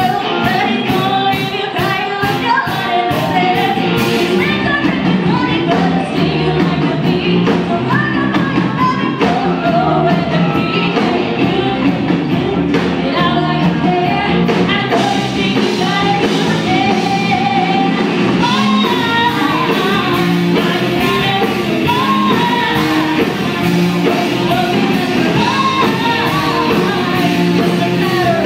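Live rock band playing a song with a singer, guitars and drums.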